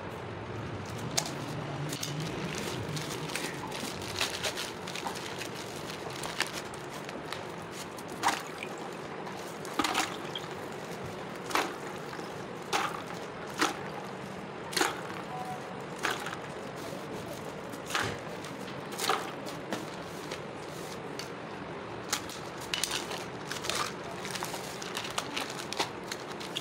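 Small juice cartons dropped one at a time into a bucket of ice water, each landing with a short splash, about once a second.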